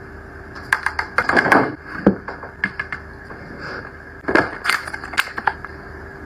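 Hands handling ornate makeup packaging, making a run of small clicks, taps and a brief rustle in irregular clusters over a faint steady hum.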